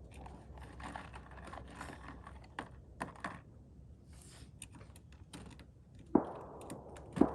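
Two rifle shots about a second apart near the end, each with a short echo, after several seconds of faint clicks and knocks.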